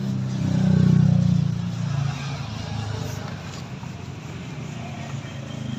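A motor vehicle's engine running, rising to its loudest about a second in and then slowly fading.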